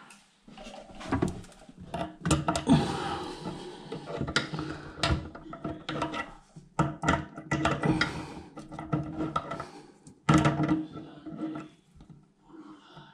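Repeated clicks and knocks, in bunches, from hands turning and tightening a plastic toilet fixing nut against a rubber washer.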